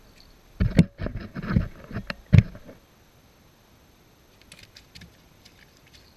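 A quick run of loud thumps and knocks as the camera is handled, moved and set down among the stones, then a few faint small clicks near the end.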